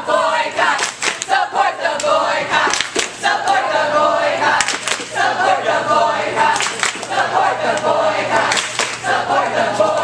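A group of people singing together, with hand claps striking here and there through the song.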